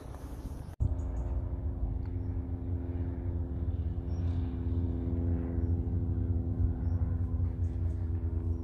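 Single-engine light propeller aircraft's engine droning steadily at one even pitch as the plane flies low over the runway, cutting in suddenly about a second in.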